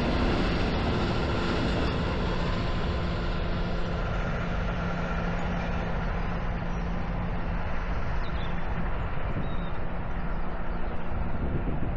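Loram rail grinder train DR79401 passing under its own diesel power: a steady engine drone with wheel and rail rumble, the higher sound slowly fading as it draws away.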